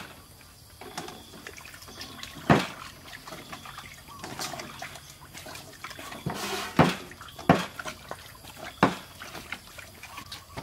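Water splashing and sloshing as carrots are washed by hand in a stainless steel basin. A few sharp knocks break in, the loudest about two and a half seconds in and three more close together later on.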